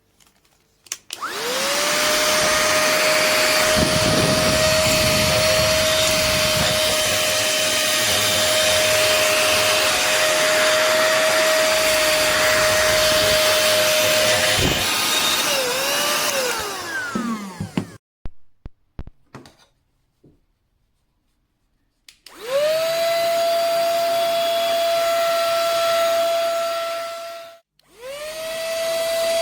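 suloea cordless handheld vacuum cleaner's small motor spinning up with a rising whine and running at a steady pitch. About halfway through it wavers and winds down, then after a few clicks and a pause it is switched on again twice, stopping briefly between the two runs.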